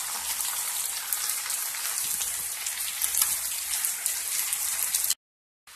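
Chicken pieces, onion, zucchini and bell pepper frying in oil in a pan: a steady, dense sizzle with fine crackles, cutting off abruptly about five seconds in.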